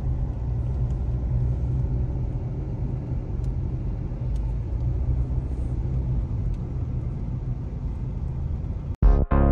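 Steady low rumble of a car driving, heard from inside the cabin. About nine seconds in it cuts off suddenly and music starts.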